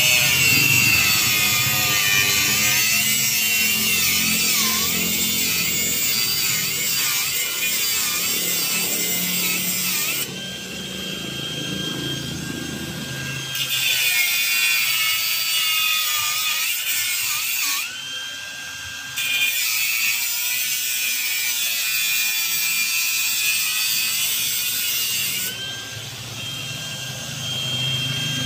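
Angle grinder's cut-off disc cutting through a steel exhaust pipe: a loud, high grinding screech whose pitch wavers under load. Three times it comes off the cut, leaving only the disc's steady whine, before it bites in again.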